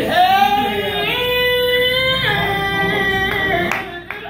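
A woman singing into a microphone with two long held notes, the second lower than the first, her voice fading out near the end.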